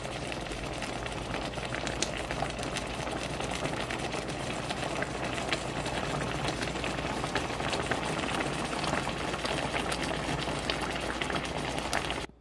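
Spaghetti in meat sauce simmering in a pan: a steady bubbling with many fine pops and crackles that cuts off suddenly near the end.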